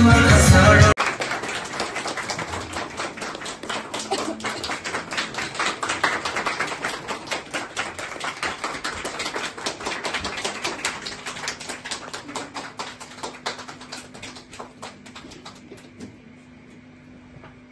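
Music stops abruptly about a second in, giving way to audience applause: many separate handclaps that thin out and fade away near the end.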